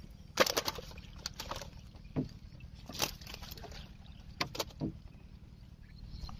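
Fishing net being hauled by hand over the side of a small boat and worked through with the fish in it. It gives scattered clicks, light knocks and rustles at irregular moments, over a faint steady low hum.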